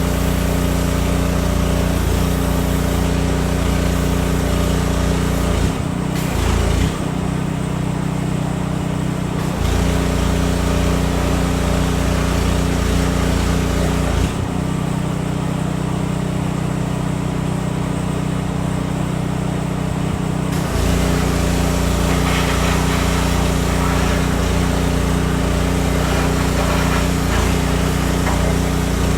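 Strong wind blowing over a steady, low, engine-like hum, which changes character twice for several seconds.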